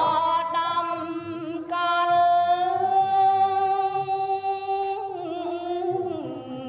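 Khmer smot, Buddhist chanted verse, sung unaccompanied by a woman: long held notes with wavering ornaments, the pitch stepping down twice near the end.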